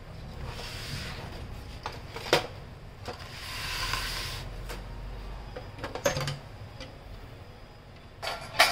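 Handling noise from a partly disassembled laser printer: its metal chassis and a circuit board being moved and set down. There are sharp knocks about two, six and eight and a half seconds in, the last the loudest, and a rustling swish around four seconds.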